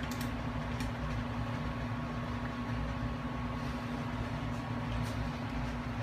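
Steady machine hum, a low drone with one steady tone, with a few faint light clicks.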